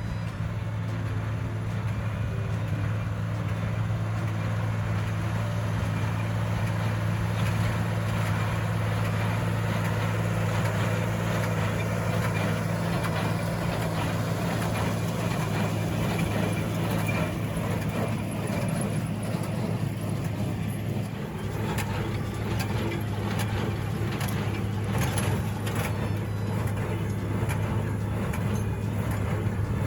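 Cockshutt 1650 tractor engine running steadily at an even speed, with scattered clicks and rattles in the second half.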